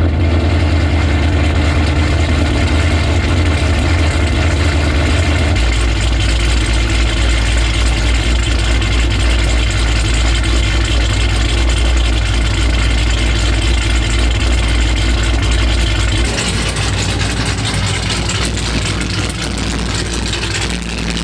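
Straight-piped V8 car exhaust idling steadily, loud and deep. Its idle note drops about five and a half seconds in, and the sound changes again near the end.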